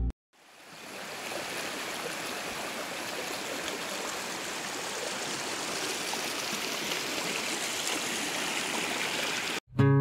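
Shallow rocky mountain creek running over stones: a steady hiss of flowing water that fades in about a second in and cuts off abruptly just before the end, where acoustic guitar music starts.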